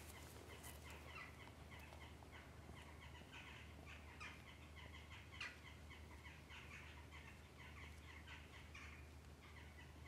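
Faint, busy chirping of a flock of birds, many short calls overlapping, over a low steady hum.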